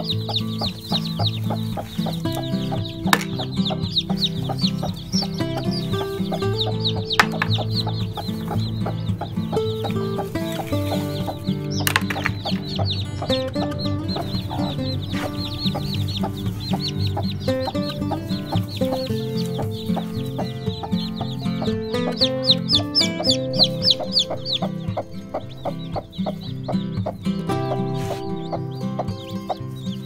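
Newly hatched chicks peeping in quick, repeated runs of high chirps, over background music with a steady beat that runs throughout.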